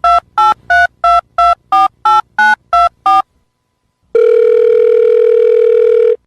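Telephone touch-tone keypad dialling ten digits, about three short two-note beeps a second. After a brief pause comes a steady telephone line tone for about two seconds, which cuts off suddenly.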